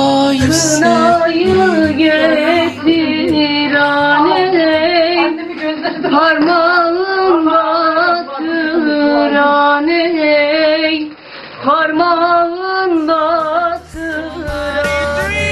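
Background music: a woman singing a melody with quick turns of pitch over instrumental accompaniment.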